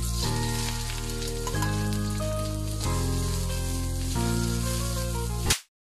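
Background music of sustained chords, changing about every second and a half, over sliced onions sizzling as they hit a hot pan and are stirred with a metal ladle. Everything cuts off suddenly near the end.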